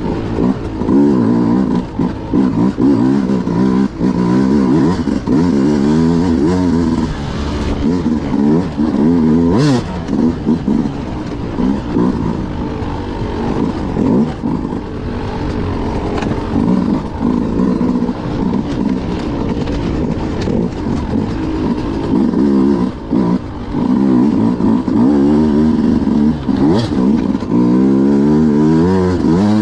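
Beta RR 200 two-stroke enduro motorcycle engine revving up and down again and again as the throttle is opened and closed.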